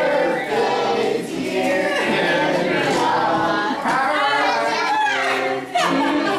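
Several voices singing together, with long held notes.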